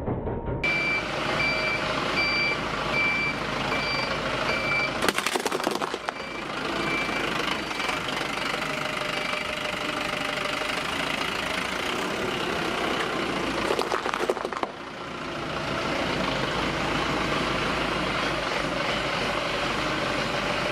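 Truck engine running with its reversing alarm beeping in a steady series through the first half. Two short bursts of crackling crunches come about 5 seconds in and again near 14 seconds, typical of objects being crushed under the wheels.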